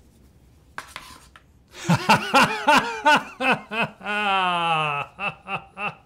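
A man laughing loudly and theatrically: a run of quick 'ha-ha' bursts, then a long drawn-out falling 'aah', then more short bursts.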